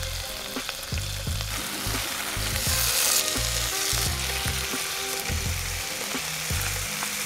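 Melted butter sizzling in a frying pan as split morel mushrooms are dropped in. The sizzle gets louder for a moment about two and a half seconds in.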